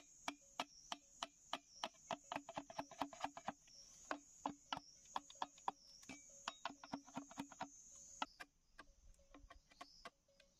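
Machete chopping and shaving a green bamboo tube: sharp, quick knocks, several a second, irregular. Behind them a high, wavering insect chorus drops out about eight seconds in.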